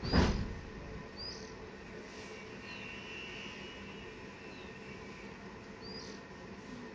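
A single dull thump right at the start, then scattered short high bird chirps, one every second or so, over a faint steady background.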